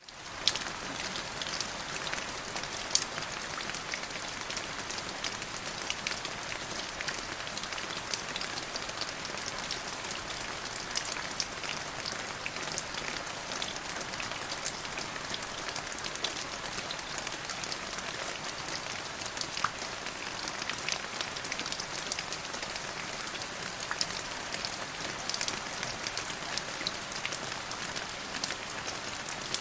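Steady rain falling, with many separate drop ticks over an even hiss. It comes in abruptly at the very start after a moment of silence.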